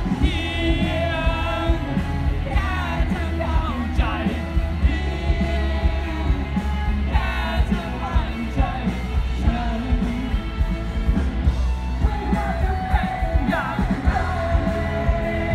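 Rock band playing live through a concert PA: a male lead vocal sings over electric guitars, bass and drums, with a heavy low end and a steady drum beat.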